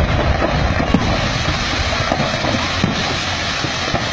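Rumble rolling on from a large explosion of stored fireworks, with scattered sharp pops and cracks of fireworks going off through it and a louder crack about a second in.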